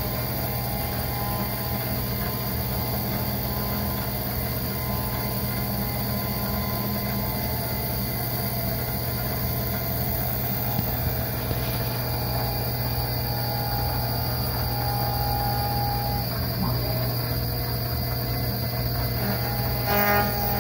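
Tree Journeyman 325 CNC milling machine running, its spindle turning an end mill through a scrap wooden board: a steady low machine hum with whining tones that come and go as the axes feed. A brief louder clatter comes near the end.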